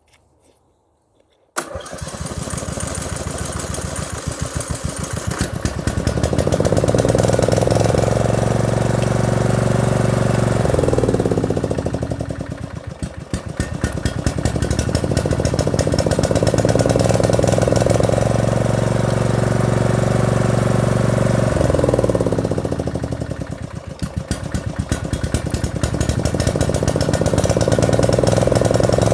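Lawn mower engine under repair starting up suddenly about a second and a half in, then running and revving up and down in long swells, three times.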